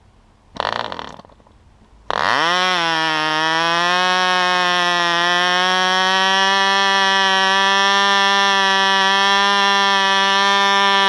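Cox .09 Medallion glow-plug two-stroke model-airplane engine: a short burst of cranking from a handheld electric starter, then about two seconds in the engine catches, its pitch climbing quickly to a high, steady whine as it runs at full speed.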